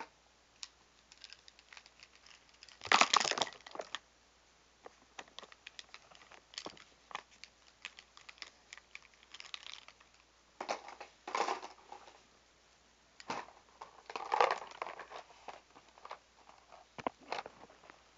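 Irregular plastic clicks, clatters and short rustling bursts of a collection of felt-tip markers being gathered and handled, with knocks from the tablet being moved about.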